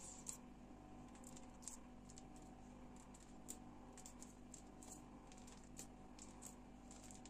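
Near silence: a low steady room hum with a few faint, scattered soft clicks as fingertips press a grid pattern into egg-washed pide dough on a metal baking tray.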